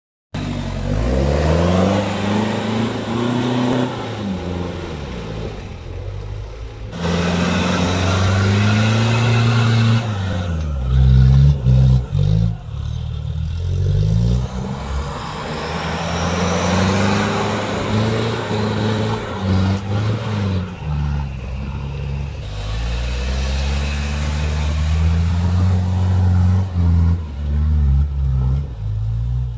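Off-road 4x4 engines revving up and down again and again under load, with the engine note changing abruptly a few times.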